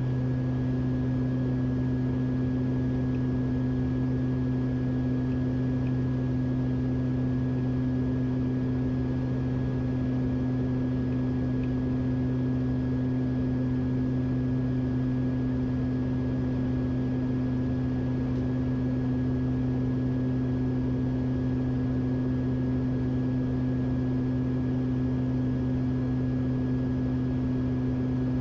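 Steady drone of a Beechcraft King Air's twin PT6A turboprops heard inside the cockpit in cruise-descent, a deep even propeller hum with a faint steady high whine above it.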